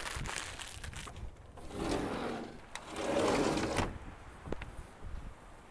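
Plastic bag of frozen hash browns crinkling and crackling as it is emptied and handled, followed by two short noisy swells of rustling about two and three seconds in.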